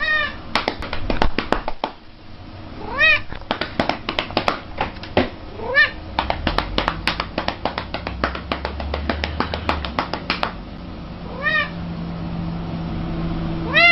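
A cat meowing: several short meows a few seconds apart, each rising then falling in pitch, over a busy run of sharp clicks and taps.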